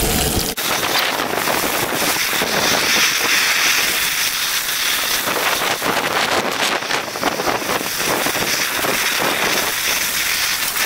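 Brook trout fillet coated in Shake 'n Bake frying in butter in a cast-iron skillet: a steady sizzling hiss full of fine crackles.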